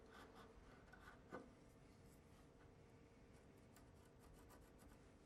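Near silence with faint scratching of a marking gauge scoring a short line into the edge of a wooden door, and one soft tick about a second and a half in.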